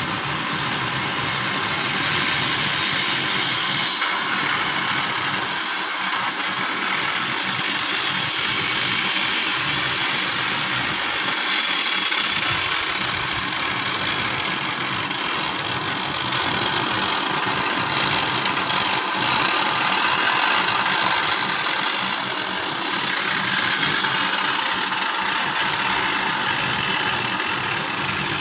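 Oxy-fuel flame-cutting torch on a CNC cutting machine hissing steadily as its oxygen jet burns through 20 mm mild steel plate.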